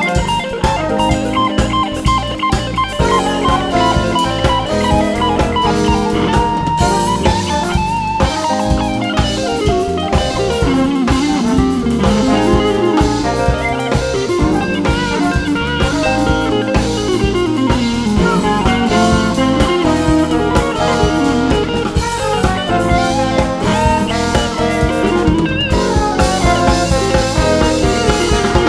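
A funk-jazz band playing an instrumental: an electric guitar lead with bending, gliding notes over drum kit, electric bass and keyboard.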